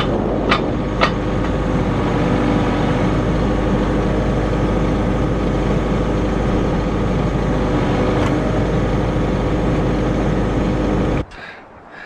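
Kubota KX080-3 excavator's diesel engine running steadily, with a few sharp clicks, about two a second, in the first second. The engine sound cuts off suddenly near the end.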